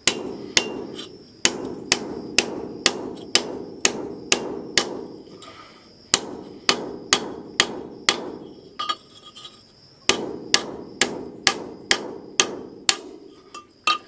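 Hammer peening over the end of steel tubing: steady, sharp metal-on-metal blows about two a second, each with a short ring, pausing briefly twice.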